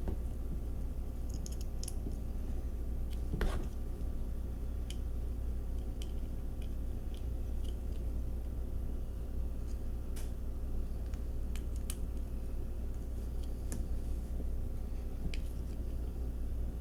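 Scattered light clicks and taps of small parts and tools being handled during a wheel swap on a diecast toy car, with one louder knock about three and a half seconds in, over a steady low hum.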